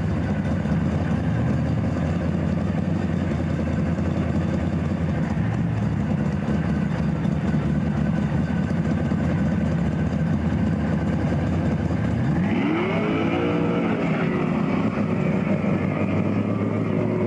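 Chevrolet Camaro drag car's engine idling loud and lumpy, then revving up sharply about twelve seconds in and holding at high revs.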